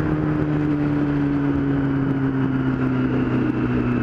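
Yamaha R6's inline-four engine running at a steady cruise, its note slowly falling as the revs ease off, with wind and road noise over it.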